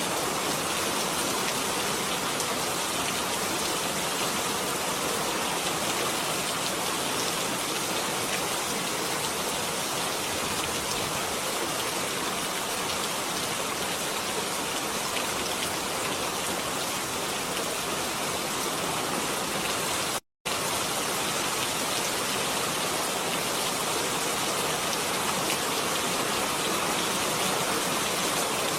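Steady rain falling, a dense even hiss with no let-up, broken once by a split-second drop to silence about twenty seconds in.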